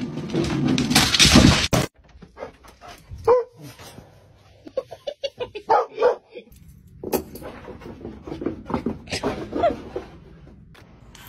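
A loud rush of noise for the first two seconds, then a dog barking in scattered short calls.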